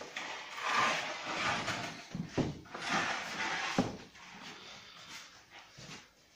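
A long wooden baker's peel working a tray of prosphora loaves in the mouth of a wood-fired bread oven: scraping sweeps across the oven floor with two sharp knocks partway through.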